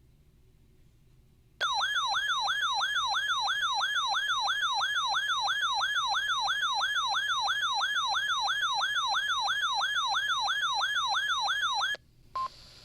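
Weather radio receiver's electronic alert siren, a loud warbling tone that sweeps up and down about three times a second, signalling an incoming severe thunderstorm watch. It starts abruptly about a second and a half in, cuts off suddenly near the end, and a short single-pitch beep follows.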